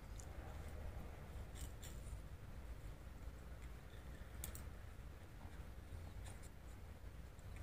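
Faint, scattered clicks and scratches of a cat gnawing and pawing at a wooden popsicle stick on stone paving, with about five short, sharp ticks a second or two apart over a low rumble.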